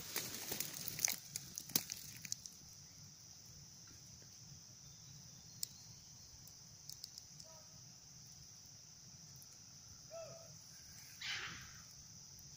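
Steady high-pitched drone of an insect chorus in tropical forest. A flurry of clicks and light knocks comes in the first two seconds, a short faint call about ten seconds in, and a brief rustle a little after.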